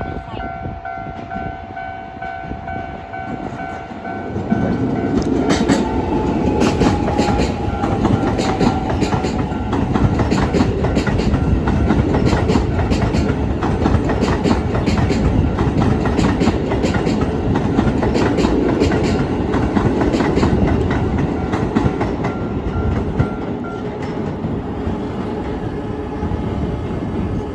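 Keisei 3050-series electric train passing over a level crossing, its wheels clattering over the rail joints for over twenty seconds, with a whine falling in pitch as it arrives. A level-crossing warning alarm sounds at the start, with steady repeating tones, and stays faintly audible under the train.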